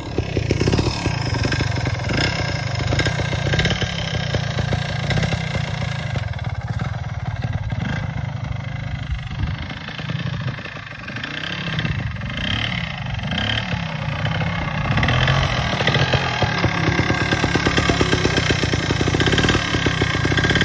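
Trials sidecar outfit's motorcycle engine running across grass, the revs rising and falling as it is ridden. It drops off around ten seconds in and builds to louder revving towards the end.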